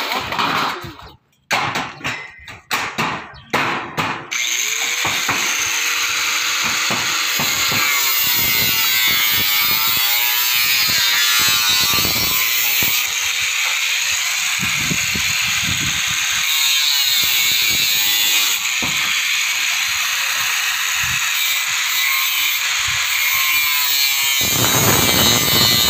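Handheld angle grinder running continuously against corrugated Tufdeck steel decking, its disc cutting the sheet metal with a loud, steady, high-pitched noise. It starts about four seconds in, after a few scattered short noises.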